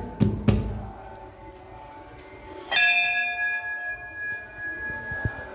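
A few dull knocks, then a metal temple bell struck once about two and a half seconds in, ringing on steadily with several clear tones.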